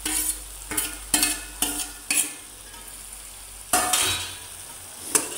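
A steel ladle scraping pieces of lightly fried arbi (taro root) off a steel plate into a steel kadhai and stirring them: about seven short, sharp scrapes and clatters, over a low sizzle of masala frying in the pan.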